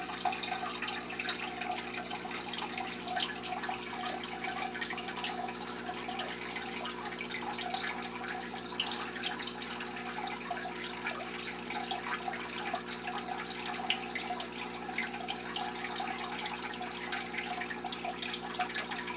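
Aquarium filter running: a steady trickle of water with constant fine bubbling and dripping ticks, over a low, steady electric hum.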